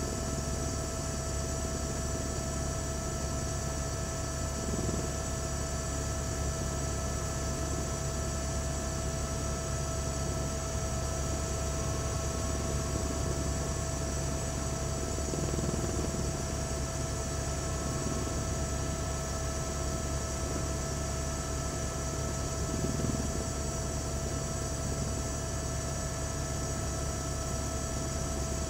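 Steady helicopter noise heard from on board: a constant low drone and hiss with a couple of unchanging tones over it.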